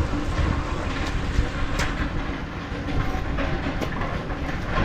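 Rain falling steadily, with a low rumble underneath and a couple of sharp taps about two and four seconds in.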